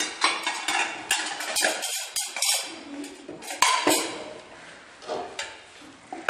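Plates and spoons clinking and clattering as they are gathered up and stacked on a table: a string of irregular knocks and clinks, busiest in the first few seconds and thinning out toward the end.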